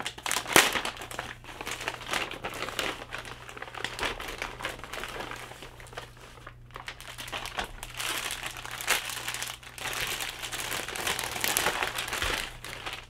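Plastic packaging crinkling and rustling as it is handled: a white poly mailer bag opened by hand, then a clear plastic bag around a T-shirt pulled open. Irregular crackles throughout, busiest about half a second in and again in the last few seconds.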